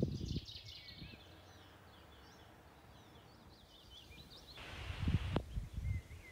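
Small birds chirping and singing, with gusts of wind buffeting the microphone at the start and again near the end.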